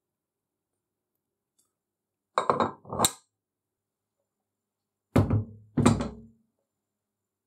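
Four short knocks and thunks in two pairs about three seconds apart, the later pair deeper with a brief low ring: a small cast-iron arbor press being handled and set down on a wooden workbench.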